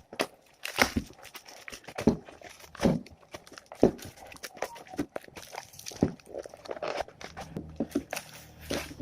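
Packaging being handled during an unboxing, with irregular clicks, taps and crinkling of plastic and cardboard.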